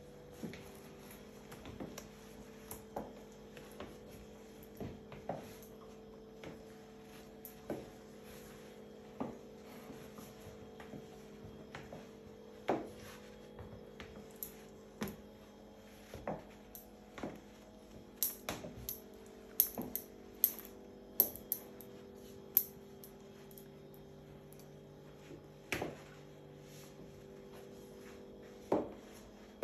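Irregular sharp clicks and taps, about one every second or two, thickening into a quick cluster about two-thirds of the way through, over a steady low electrical hum.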